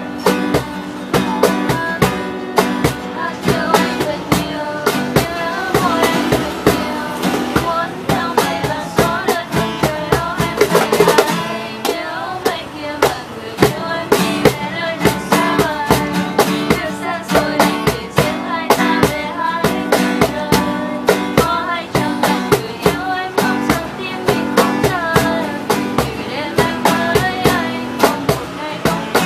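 A steel-string acoustic guitar strummed while a cajón is slapped to keep a steady beat, with voices singing along in places.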